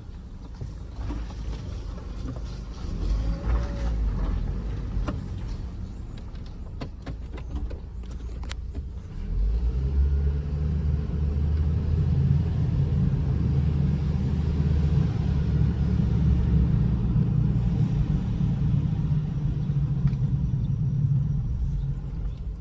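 2008 Hummer H3 driving, heard from inside the cabin: a low engine and road rumble with a few clicks early on, growing clearly louder about nine seconds in and then running steadily.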